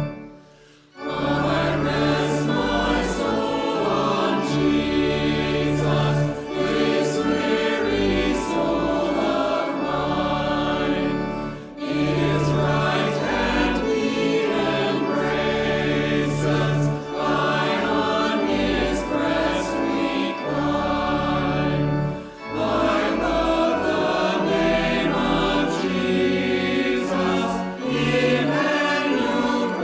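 A mixed choir of men's and women's voices singing a hymn. The choir comes in after a pause of about a second at the start, with brief breaks between lines.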